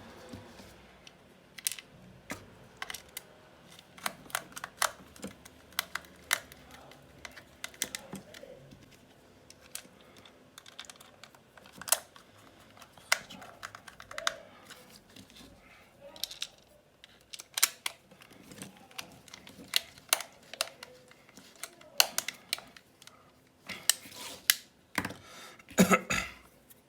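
Irregular clicks and taps of small plastic and metal hair-clipper parts being handled and fitted together, some sharper than others, with a brief cluster of louder knocks near the end.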